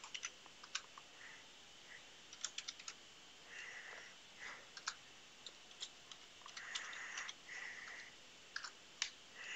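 Computer keyboard typing: faint, irregular keystrokes in short runs with pauses between them.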